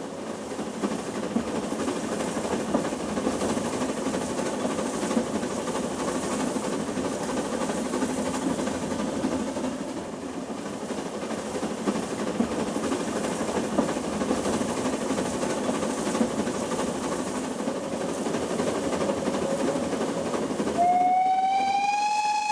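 A Henschel-built narrow-gauge steam train running at speed, with a steady rumble and scattered clicks from wheels and coaches. About 21 seconds in, the locomotive's steam whistle sounds, a loud sustained tone that rises a little in pitch at its start, then holds.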